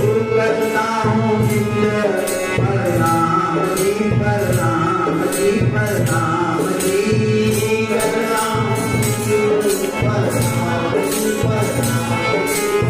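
A man singing a devotional bhajan to his own harmonium accompaniment, the voice sliding between held notes over the reed chords. Jingling hand percussion and a low drum-like pulse keep a steady beat.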